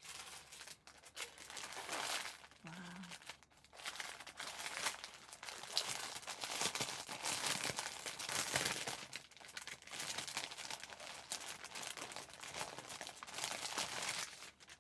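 Packaging crinkling and rustling on and off as the kit's embroidery thread is unwrapped and handled.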